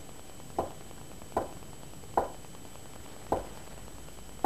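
A cut-down wooden shovel handle striking with slow, even taps, five in all about a second apart: the slow-tap bone-conditioning method.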